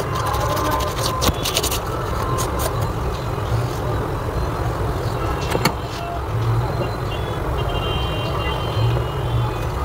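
Steady road-traffic rumble from a busy street. A few short scraping clicks sound in the first two seconds, a single sharp click a little after the middle, and faint high tones like distant horns near the end.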